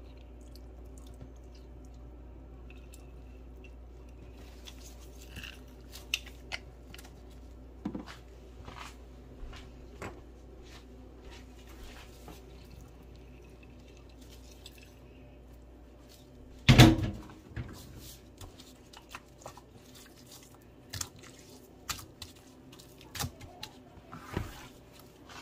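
Scattered small wet ticks and drips of lemon being squeezed over spice-rubbed fish fillets on a plate, with one loud knock about seventeen seconds in, over a low steady hum.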